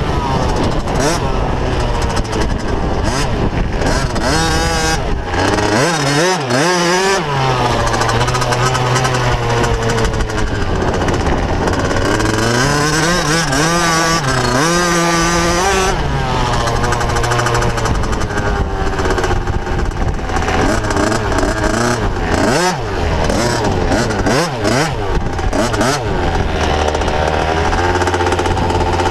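Motocross bike engine heard close from the bike itself, revving up and down as it is ridden around a dirt track. Near the end it settles to a steady idle.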